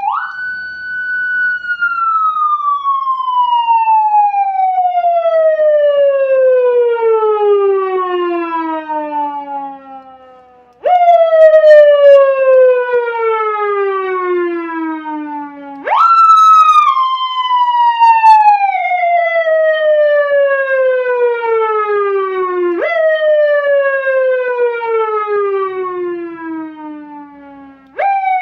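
Homemade electronic siren module sounding loudly through a horn loudspeaker. It makes a wailing tone that jumps up in pitch and then slides slowly down, starting over five times, with each fall lasting about five to eleven seconds.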